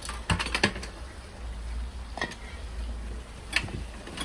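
A few light clicks and knocks of objects being handled, several close together near the start and then single ones about two and three and a half seconds in, over a steady low hum.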